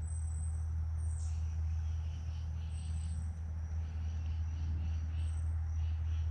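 Insects chirping in a steady high-pitched chorus, with repeated softer pulses beneath, over a steady low hum.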